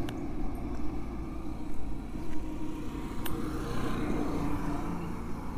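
Car passing on a hill road, heard as a low, steady rumble, with two faint clicks.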